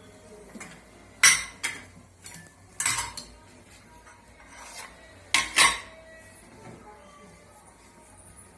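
A metal spoon stirring the frying masala in a cooking pan, knocking and scraping against the pan in a handful of sharp clanks. The loudest come about a second in and again around five and a half seconds in.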